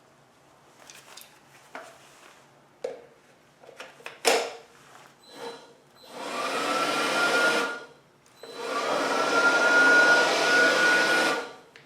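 Some handling clicks and a sharp click about four seconds in, then a DeWALT 20V MAX DCE100 compact cordless blower run twice, a second or two then about three seconds, each time a rush of air with a motor whine that rises as it spins up and then holds.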